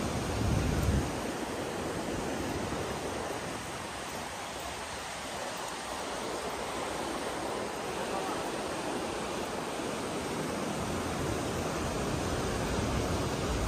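River water rushing steadily over the rapids below a bridge. Wind buffets the microphone about half a second in and again over the last couple of seconds.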